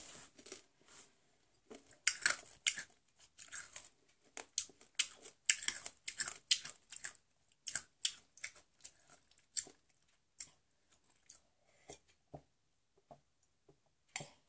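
Close-up chewing and crunching of a Toxic Waste sour hard candy: a quick run of short, crackly mouth clicks and crunches that thin out after about seven seconds to occasional single clicks, while water is sipped from a glass.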